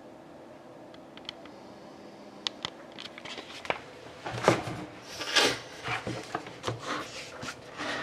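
A trading-card box and its packaging being handled: a few light clicks and taps, then several seconds of uneven rustling, scraping and crinkling.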